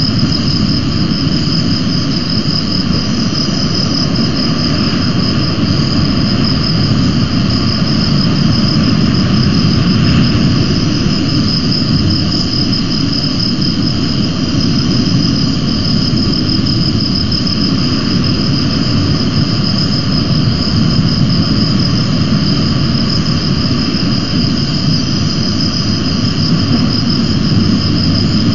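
Steady, unchanging outdoor noise picked up by the nest camera's microphone: a low rumble, with a continuous high-pitched whine over it. No eagle calls.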